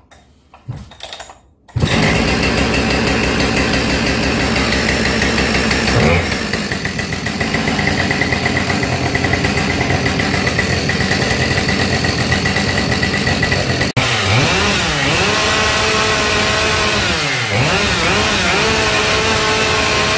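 Husqvarna 572XP two-stroke chainsaw pull-started on its second start: after a couple of cord pulls it catches about two seconds in and runs at fast idle. Around six seconds there is a quick throttle blip, and it drops to a steady idle. In the last few seconds its engine speed rises and falls several times.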